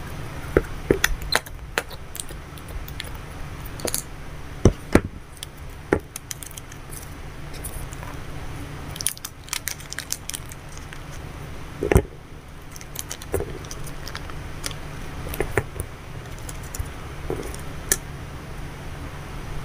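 Plastic packaging handled close to the microphone: irregular clicks, taps and crinkles from plastic slime tubs, their lids and a small plastic bag being opened, over a steady low hum.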